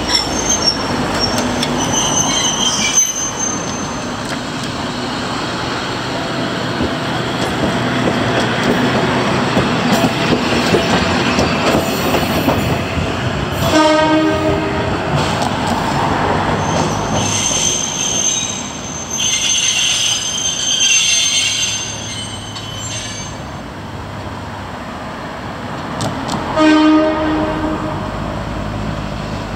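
Fukui Railway tram pulling away from the stop and running off along street track, its running rumble fading into the distance. High wheel squeal sounds early on and again in the middle. A horn sounds briefly about halfway through and again near the end.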